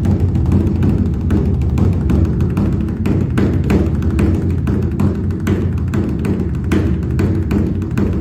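Traditional drumming: a dense, continuous low drum rumble with many quick, sharper strokes on top, played steadily without a break.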